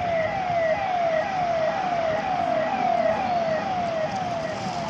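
Electronic vehicle siren sounding a fast repeating pattern: a tone that drops in pitch, about two sweeps a second, over steady background noise.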